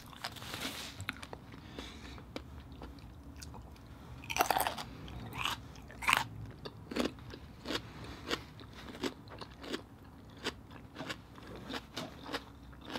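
Close-up chewing of a baked oyster topped with fish roe and green onions: many short wet clicks from the mouth, loudest about four and a half and six seconds in. A paper tissue rustles briefly at the start.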